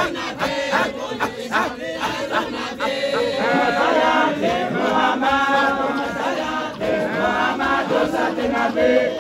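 A group of men chanting together in unison. In the first three seconds the chant is punctuated by sharp, evenly repeated beats; after that the voices hold long sung notes together.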